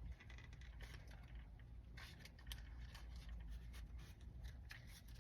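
Faint rubbing and scraping with a few light ticks: hands stretching a rubbery shifter boot down over a pistol grip shifter.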